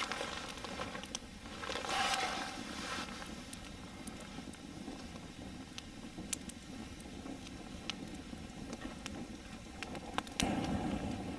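Wood campfire crackling with scattered sharp pops, and one loud snap about ten seconds in.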